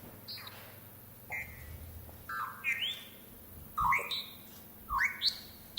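Electronic chirps and beeps from the Sphero robotic ball's control app, a string of short synthetic tones, several of them sweeping upward and growing louder over the last few seconds.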